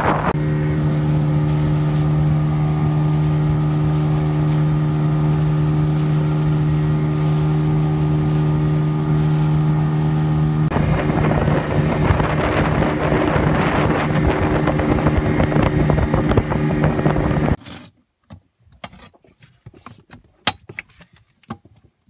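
Outboard motor of an inflatable boat running at a steady speed under way, with wind and water rushing past; the rushing grows louder about ten seconds in. The motor sound cuts off abruptly near the end, leaving a few faint clicks.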